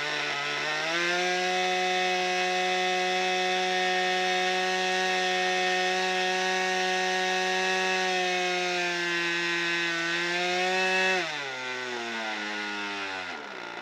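JEN .57 engine of an RC model plane running on the ground. It speeds up about a second in and holds a steady high speed, gives a brief blip of throttle near the end, then drops back to a low idle.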